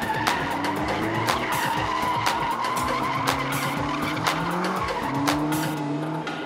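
Caterham Seven sports car drifting on tarmac: tyres squealing in a long, wavering skid while the engine note rises several times.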